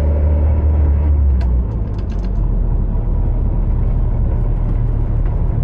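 Toyota AE86 running on the road, a steady low engine drone that eases off in level about a second and a half in, with a few light clicks around then.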